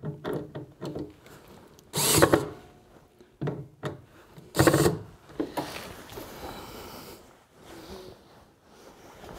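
Cordless drill/driver driving screws in short bursts to tighten the flip-out tray hardware. The two loudest runs come about two seconds and four and a half seconds in, with quieter handling and scraping after them.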